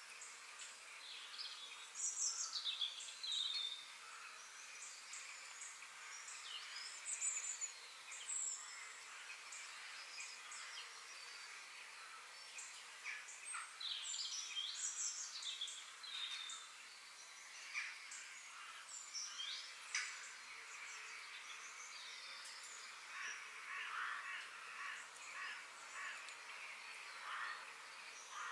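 Several small songbirds singing and calling at once: overlapping chirps, short trills and quick falling whistles, over a faint steady hiss, with louder bursts of song about two seconds in and again around the middle.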